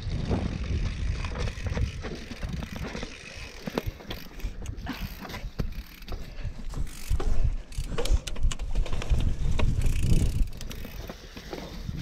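Mountain bike ridden over a forest trail: wind rumbles on the microphone while the bike rattles and clicks irregularly over bumps, with ratchet-like ticking from the drivetrain.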